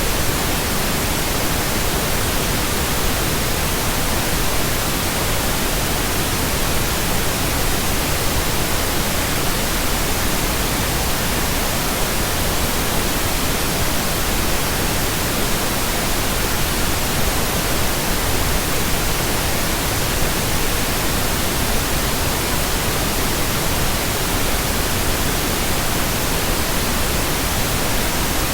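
Synthetic pink noise: a steady, unchanging hiss spread evenly from low to high, with no breaks or tones.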